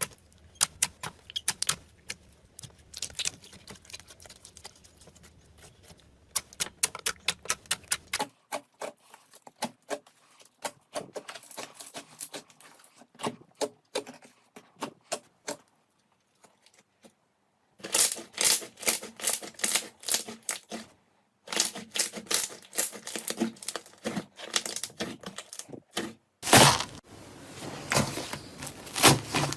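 Slime being pressed, poked and squeezed by hand, giving rapid trains of crackling, popping clicks as air pockets snap. The sound changes abruptly a few times, and there is a brief near-silent gap just past the middle.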